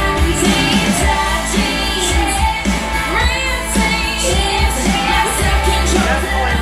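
Pop song with a woman singing and a heavy bass line, played through a pair of Bose S1 Pro portable PA speakers with a Bose SUB 1 subwoofer.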